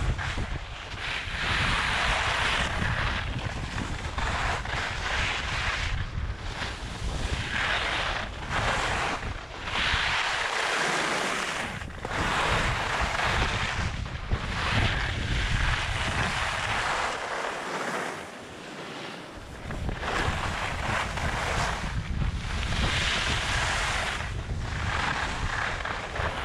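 Wind buffeting the camera microphone while skiing downhill at speed, with the hiss of skis sliding and scraping over packed snow that swells every couple of seconds through the turns.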